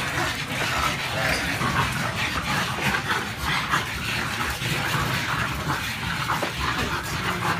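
A pack of pugs milling together, with many short dog sounds in quick succession.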